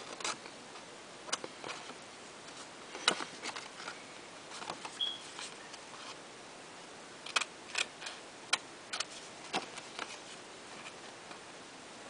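Small scissors snipping through a stiff index card: scattered short, crisp snips, with a closer run of them in the second half.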